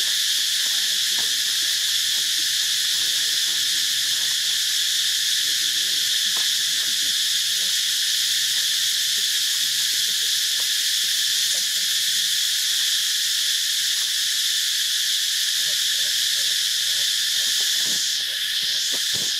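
Dense, steady chorus of forest insects, a high shrill hiss that does not let up.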